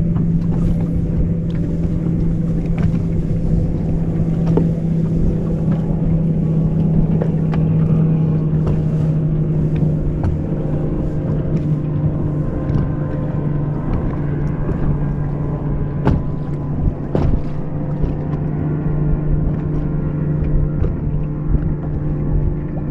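Boat motor running with a steady low hum, with a few scattered clicks and knocks over it.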